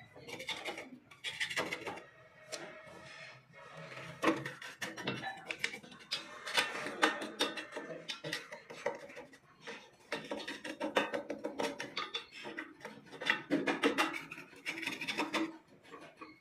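A flat steel bar scraping and knocking against the rusty helical reel blades of a grass cutter, metal rubbing on metal in irregular strokes with scattered clinks.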